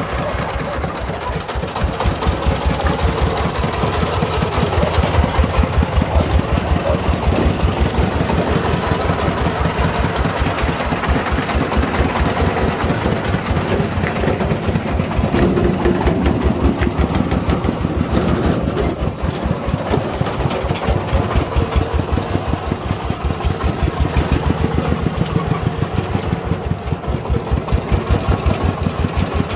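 Single-cylinder diesel engine of a homemade three-wheeled công nông dump truck, running with a steady, evenly spaced chugging beat.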